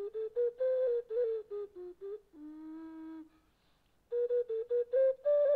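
Background music: a single instrument plays a melody in short, separate notes. About halfway through it holds one longer, lower note, pauses briefly, then goes on with quick notes.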